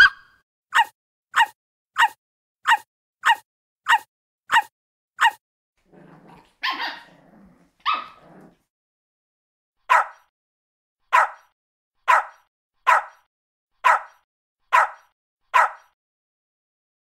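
Recorded puppy barks: a run of short, sharp barks about one and a half a second. They break off about five seconds in for a rougher, lower two-part call, then resume in a slightly slower run of seven barks.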